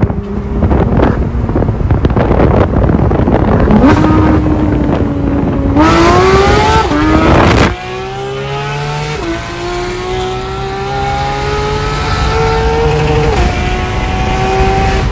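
Ferrari sports car accelerating hard beside a moving car. Its engine note climbs and drops back in steps as it shifts up through the gears, and cuts off sharply about two-thirds of the way through. After that it is quieter, a steadier engine note that creeps upward with two more shifts, under wind and road rush.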